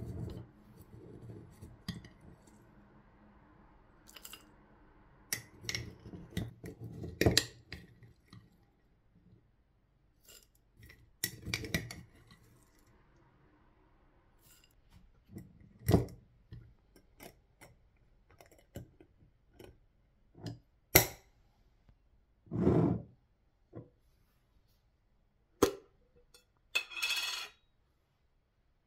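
Metal spoon scooping granola out of a glass clip-top jar into a ceramic bowl of yogurt: irregular clinks and scrapes of the spoon on glass and china, some sharp and loud, others soft.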